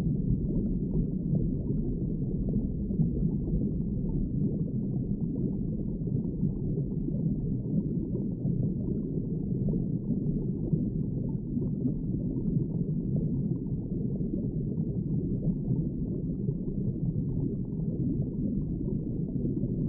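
Deep underwater ambience: a steady, muffled low rumble with a faint bubbling flicker and nothing above the low range.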